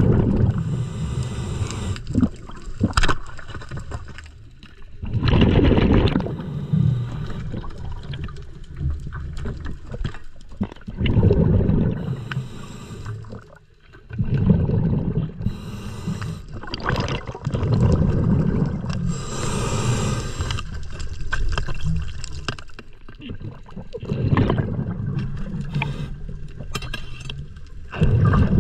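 Scuba diver breathing through a regulator underwater: a hiss on each inhale and a burst of gurgling exhaust bubbles on each exhale, every few seconds.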